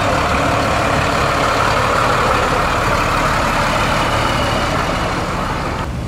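Engine of a big vintage Dodge truck running steadily as it rolls slowly past.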